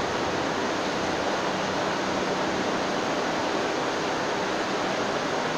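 Steady rushing noise with a faint low hum from a subway train standing in the station.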